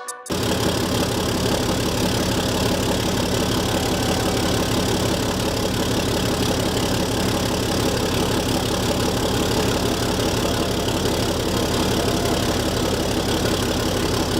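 6.7-litre Cummins inline-six turbo-diesel in a Ram 3500 pickup idling steadily.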